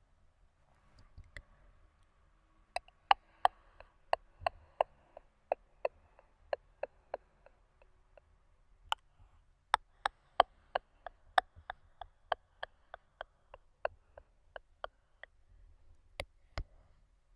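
Mouth clicks: the tongue clicking sharply in quick runs of about three a second, with a short break about halfway through.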